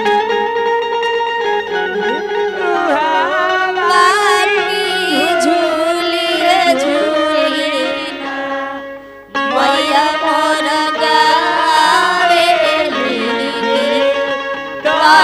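A woman singing a Bhojpuri dugola folk song, amplified through a microphone, in long wavering held notes over a steady drone. She breaks off briefly about nine seconds in and then carries on.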